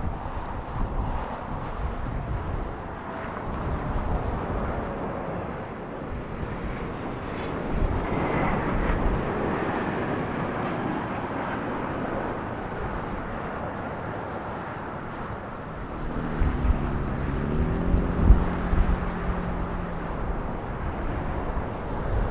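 Boeing 777-300ER's GE90 jet engines rumbling as the airliner lands, with wind buffeting the microphone. The rumble swells about eight seconds in, and a low hum steps up in pitch later on.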